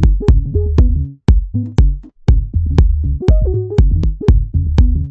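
Electronic music with a drum-machine beat, about two hits a second, over a deep bass line, with short breaks in the beat.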